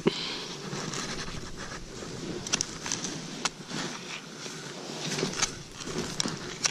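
Skis shuffling and crunching through deep snow, with several sharp clicks along the way.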